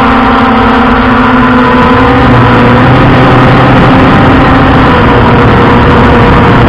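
Quadcopter drone's motors and propellers whining steadily, heard close up through the drone's own microphone, with several held tones over a loud rush of air. The pitch shifts slightly about two seconds in as the drone adjusts.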